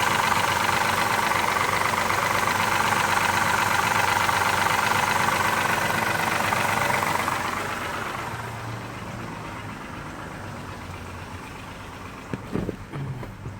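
Mazda 6's 3.0-litre V6 engine running with a rapid ticking knock, which the owner suspects is a bad lifter or timing chain. The sound is loud for about seven seconds, then drops off and runs quieter, with a couple of short knocks near the end.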